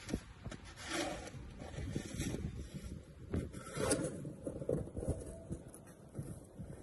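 Irregular soft scraping and rubbing sounds over a low rumble, coming and going in short patches.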